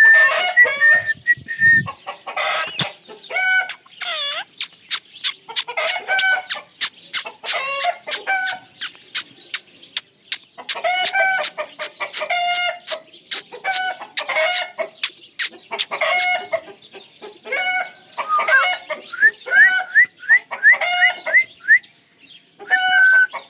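Ringneck parrot calling: a long run of short, repeated squawks and chatter, with a quick series of rising whistled notes about three-quarters of the way through.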